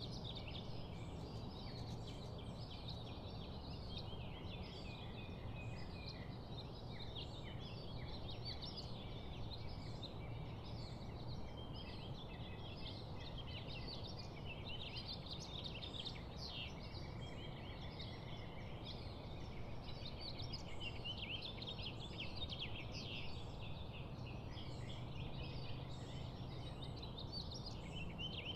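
Many birds chirping and chattering together in a dense, continuous chorus, over a steady low hum.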